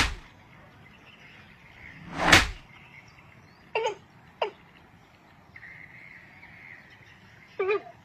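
Two loud rushing whooshes about two seconds apart, then three short, harsh bird calls: two half a second apart around four seconds in, and one near the end.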